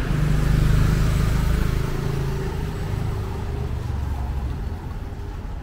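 A motor vehicle's engine running as it passes close by on a city street, loudest in the first two seconds and then fading away.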